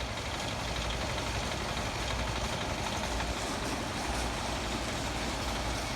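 Chinese 168F single-cylinder diesel engine running steadily at full throttle while belt-driving a grain auger.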